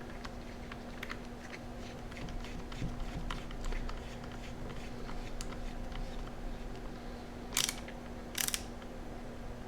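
Light scattered clicks and ticks of a small Phillips screwdriver working screws into a handheld computer's plastic case, with two short, louder scratchy noises near the end. A steady low hum runs underneath.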